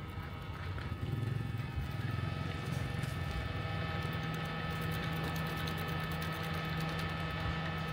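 A small engine running steadily, its low hum building about a second in and then holding even.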